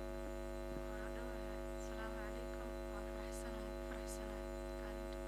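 Steady electrical mains hum in the microphone's audio chain, a constant buzz-like drone with many overtones, with a woman's voice faintly audible beneath it.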